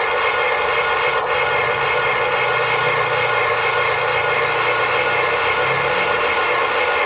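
A small electric motor and its gears running steadily with a raspy, grinding whine, its higher hiss cutting in and out a couple of times.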